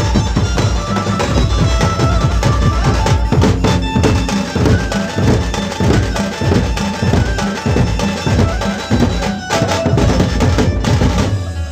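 A Dhumal band's large double-headed drums beaten with sticks in a fast, dense, driving rhythm, several drummers playing together, with a few held melodic notes over the top.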